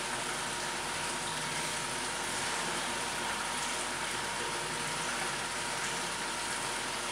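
Steady rushing hiss, like running water, with a faint steady whine, typical of an aquarium's water pumps and filtration running.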